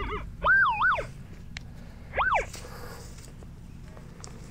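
Metal detector target tones as the coil is swept over a buried target: a warbling tone that rises and falls twice, then a single tone that rises and falls about two seconds in. The signal reads 67 but sounds like junk.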